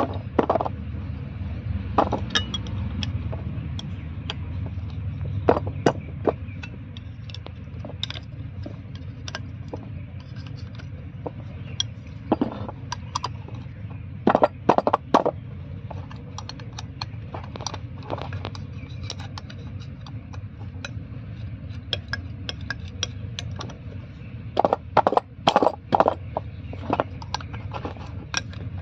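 Steel tools and a removed truck air-brake relay valve being handled as the valve is taken apart: scattered sharp metal clinks, taps and scrapes, in quick clusters about halfway through and again near the end, over a low steady rumble.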